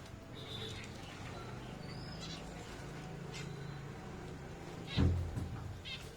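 Zebra finches giving short, high, nasal calls every second or so over a steady low hum, with a single low thump about five seconds in.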